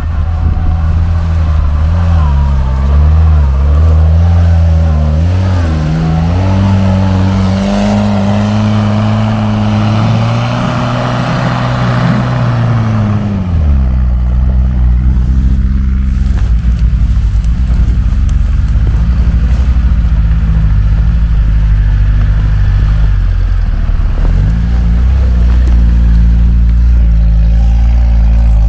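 Off-road vehicle engine working hard: the revs climb and hold high for several seconds, drop sharply about halfway through, then run steadily at lower revs.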